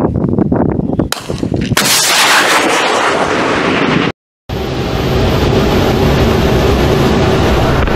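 Stugna-P anti-tank guided missile launched from its tripod launcher: a sharp bang about a second in, then a loud rushing blast for about three seconds. After a brief dropout, a steady low rumble follows from a warplane's cockpit.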